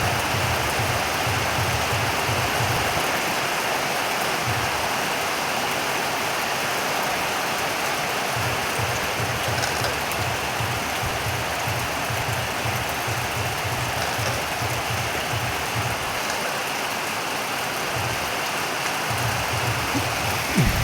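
Steady rain falling, an even hiss with a low pulsing rumble underneath that comes and goes.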